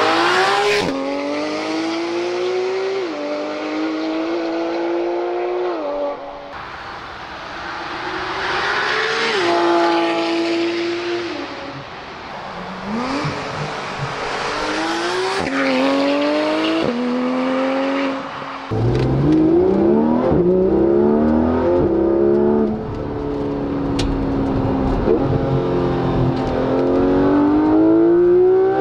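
Porsche 991 GT3 RS's naturally aspirated 4.0-litre flat-six accelerating hard past the roadside, its pitch climbing high and dropping at each quick PDK upshift, over several passes. Past the two-thirds mark it is heard from inside the cabin, still pulling hard through the gears.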